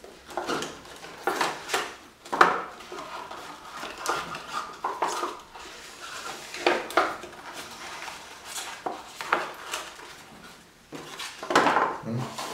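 Card polyhedron model pieces being handled and taken apart: irregular rustles, light taps and knocks of card against card and on the tabletop.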